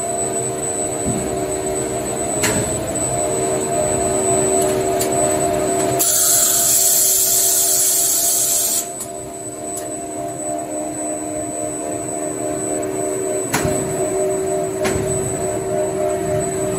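Toilet paper rewinding production line running steadily: a machine hum with several steady tones, and sharp clicks now and then. A loud hiss starts about six seconds in and cuts off suddenly near the middle.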